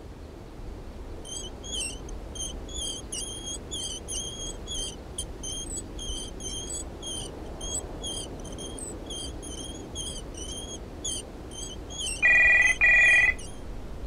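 Rhythmic squeaking of the wheels of a small hand-pulled cart, about two squeaks a second. Near the end a telephone rings twice, much louder.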